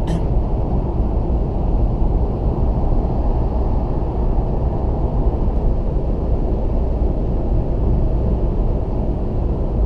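Steady tyre and engine noise inside a Toyota Auris cruising at motorway speed, a low, even drone that does not change.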